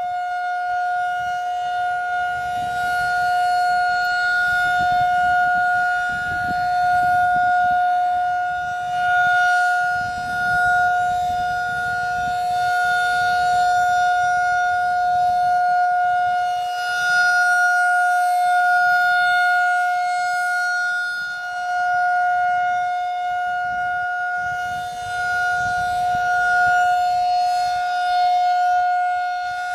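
Federal Signal 2001-SRN rotating electromechanical tornado siren sounding a steady tone at full speed during a test. Its loudness swells and fades every few seconds as the rotating head sweeps past.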